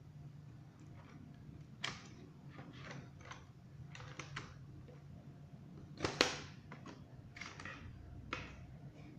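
Scattered clicks and taps of a laptop's plastic casing and small parts being handled and taken apart, with the loudest pair about six seconds in, over a low steady hum.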